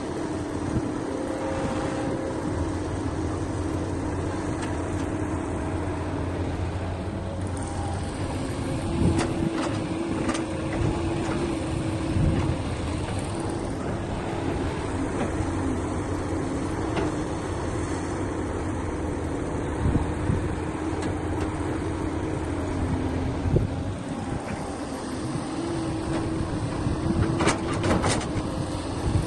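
Heavy diesel construction machinery running steadily, its engine note rising and falling a little, with a few sharp metallic knocks about a third of the way in and again near the end.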